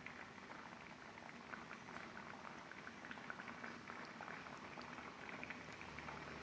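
Chili sambal cooking in oil in a pan, sizzling faintly with many small irregular pops and crackles.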